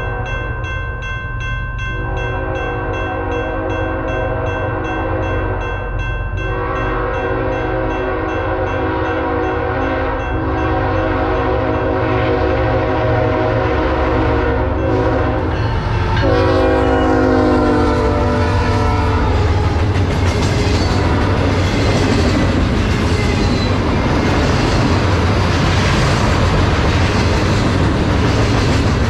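BNSF GE ES44C4 locomotives approach and pass. The lead unit's Nathan K5HL five-chime horn blows several long blasts over the steady rumble of the diesels, and its chord drops in pitch about 16 seconds in as it goes by. Once the horn stops about 19 seconds in, loaded container well cars pass close by with a loud rush and clatter of wheels on rail.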